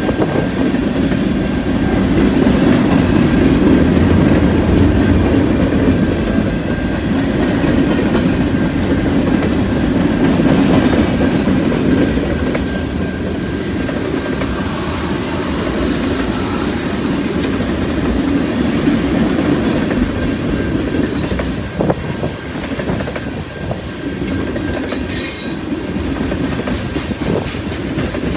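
Freight train's tank cars and covered hopper cars rolling past close by, steel wheels rumbling steadily on the rails, with a few sharp knocks about three-quarters of the way through.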